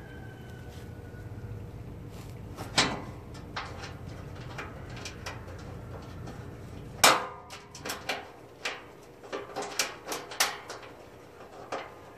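Sharp knocks and clanks from a riding mower's hood panel being handled and worked on: one hard knock about three seconds in, a louder clang about seven seconds in, then a run of lighter knocks.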